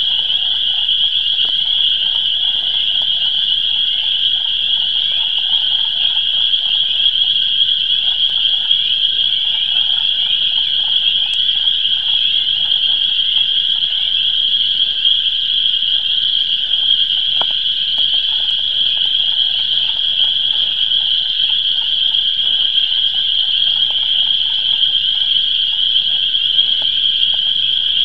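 Spring chorus of swamp frogs just out of hibernation: a dense, steady mass of high-pitched calling with a weaker, lower layer of calls beneath it.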